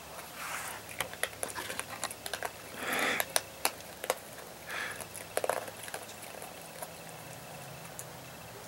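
Virginia opossum eating cat food: a dense run of sharp crunching clicks with a few short noisier bursts, mostly in the first six seconds, then quieter.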